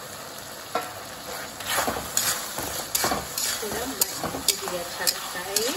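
A steel spatula stirring and scraping onions and capsicum through a thickening sauce in a metal wok, with sharp clicks of metal on metal over a frying sizzle, as cornflour slurry is worked in. The scraping strokes get busier and louder about a second and a half in.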